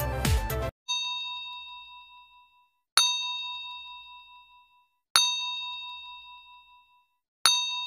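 Background music stops short, then a bell-ding sound effect for a subscribe-bell animation rings four times: one faint ding, then three clear strikes about two seconds apart, each ringing out and fading.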